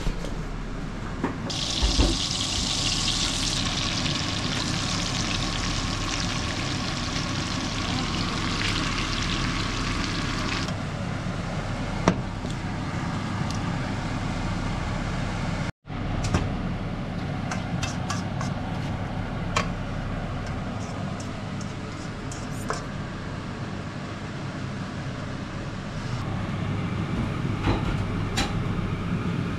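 Beef strips frying in a wok, a steady sizzle, with a spatula stirring and scraping the pan in occasional clicks. A brighter, louder hiss runs for roughly the first ten seconds, and a steady low hum lies underneath.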